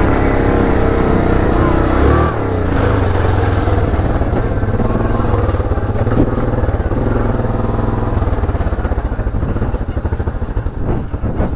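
ATV engine running under way along a rough dirt trail. The engine note drops about two seconds in as the throttle eases, then holds steady.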